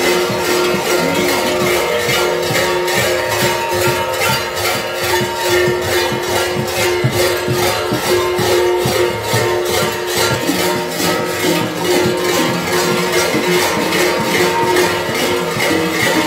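Kukeri bells (hlopki): a cluster of large metal bells worn at a kuker's waist, clanging together in a steady rhythm of a few strikes a second as the wearer moves, their ringing tones carrying on between strikes.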